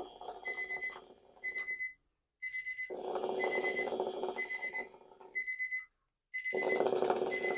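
Alarm clock with bed shaker going off: the clock sounds repeated short high-pitched beeps in quick groups, while a louder low rattling buzz comes in two spells of about three seconds with a short break between, the bed shaker vibrating.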